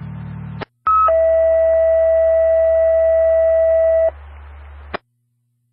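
Radio dispatch alert tones over a scanner: after a click, a brief higher tone is followed by a loud, steady lower tone held for about three seconds. This is a two-tone page alerting a fire station before a dispatch. A radio hum follows, cut off by a click near the end.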